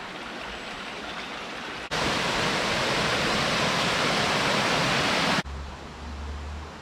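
River water rushing, then a much louder, fuller rush from about two seconds in that stops abruptly about two-thirds of the way through. After that comes a quieter hiss of water with a low rumble.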